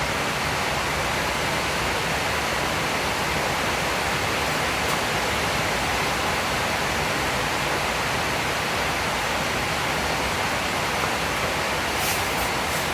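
Steady hiss of heavy rain from a thunderstorm, an even, unbroken wash of noise, with a few faint ticks near the end.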